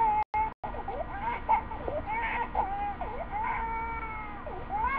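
A baby crying in short, wavering wails, one after another. The sound cuts out twice for a moment near the start.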